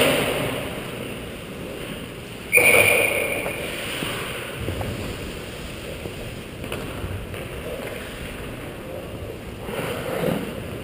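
Ice hockey skate blades scraping and gliding on rink ice, heard close up from a helmet camera with air rumbling over the microphone. About two and a half seconds in, a sudden loud sound with a short high tone cuts in and fades.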